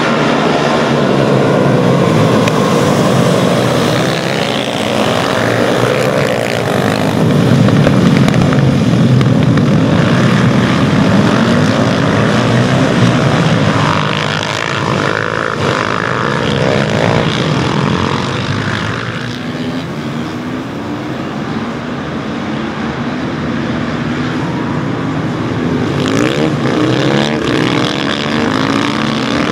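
A pack of supermoto motorcycles racing, many engines revving hard together, their pitch rising and falling as the bikes accelerate and shift. The din eases a little past the middle, then builds again.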